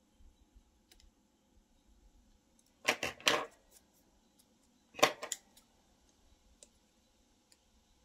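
Small scissors and a paper cutout being handled: two short clusters of sharp clicks and paper rustles, about three seconds in and again about two seconds later.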